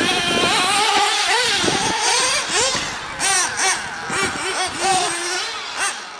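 Nitro RC buggy's small two-stroke glow engine revving up and down over and over, its high-pitched whine rising and falling quickly with each burst of throttle.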